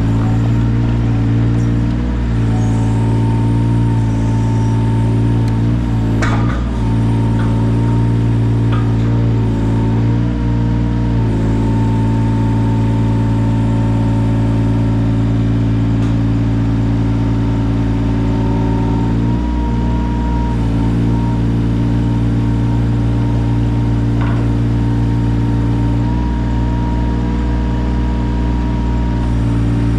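Yanmar 017 mini excavator's diesel engine running steadily under work, with a thin steady whine above it. There are a few short knocks about six seconds in.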